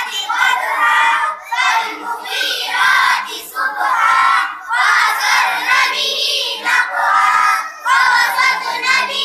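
A group of children chanting in unison in a sing-song recitation, in short phrases of about a second each.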